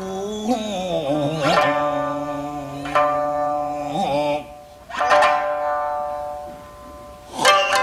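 A rōkyoku singer's long wavering note glides down and ends about a second in; a shamisen then plays a sparse interlude, single plucked notes a second or two apart, each ringing and fading.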